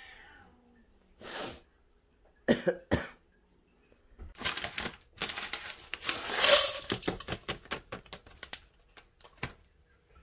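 Crinkling of a packet and dry flakes being tipped out into a plastic bowl: a string of crackles and clicks that builds to its loudest about six and a half seconds in, after a few sharp handling clicks earlier.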